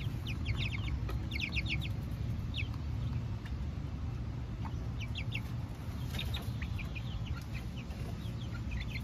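Hens clucking, short high calls in small clusters every second or two, over a steady low background rumble.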